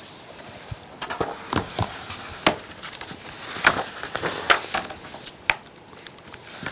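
Paper rustling and crackling from a picture book's page being turned, a quick run of sharp crinkles.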